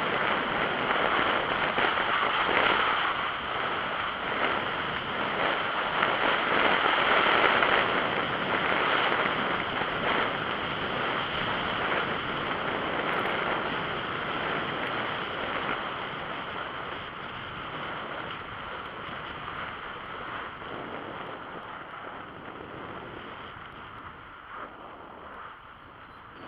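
Wind rushing over a mountain-bike action camera's microphone, mixed with the tyres rolling on a paved and gravel path. It is a steady rush that grows gradually quieter over the second half.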